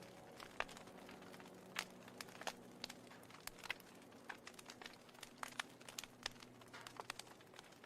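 Wood fire crackling faintly, with sharp, irregular pops and snaps several times a second.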